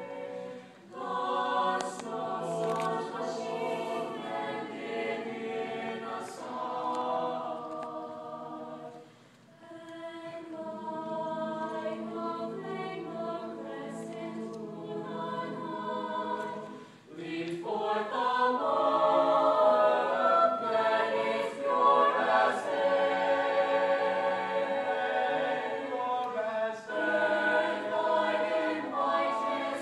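Mixed chamber choir singing in harmony, with brief breaks between phrases about one, nine and seventeen seconds in, and singing louder from about eighteen seconds.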